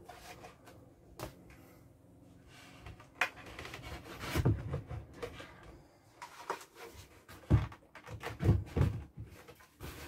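Scattered knocks and bumps from a painted corner shelf being handled and pushed into place in a corner, the loudest about halfway through and a few more near the end.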